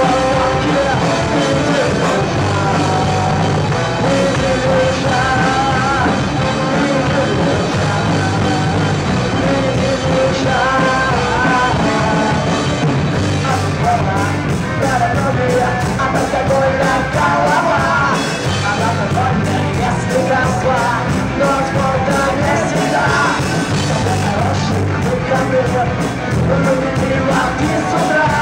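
Rock band playing live, with a singer shouting the vocals over electric guitars, bass and drum kit.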